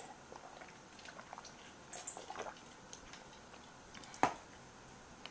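Quiet room with faint, scattered small clicks and soft ticks, and one sharper click a little past four seconds in.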